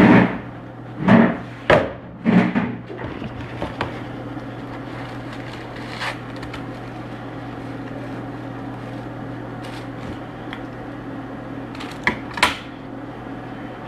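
Handling noises close to a laptop microphone: several knocks and rustles in the first three seconds and two more a little before the end, over a steady electrical hum.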